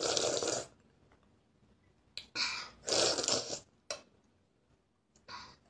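A young child slurping soup off a spoon: a loud slurp at the start, two more close together between two and three and a half seconds in, and a short one near the end.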